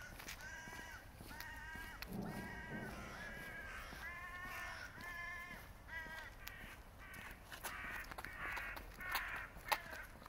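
A bird calling over and over, about two calls a second, each short call with a clear pitch; the calls turn rougher in the second half. A few sharp clicks near the end.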